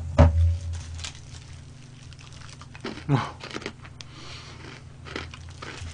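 Chewing and mouth sounds of someone eating fried chicken, with scattered clicks and rustles from handling the food, and a heavy knock near the start.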